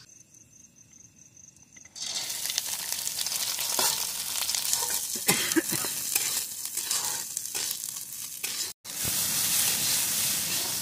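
Fresh maize kernels hitting hot oil in a kadai and sizzling, starting suddenly about two seconds in after a quiet start. A metal spatula scrapes and stirs them through the sizzle, which breaks off for a moment near the end and carries on.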